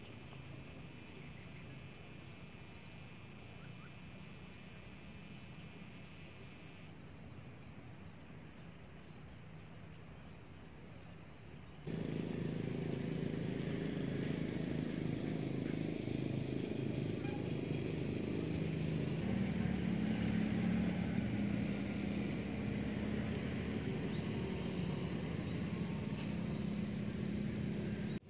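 Quiet outdoor background for about twelve seconds, then a sudden jump to a louder, steady hum of motor vehicles from a nearby road, with a low engine drone.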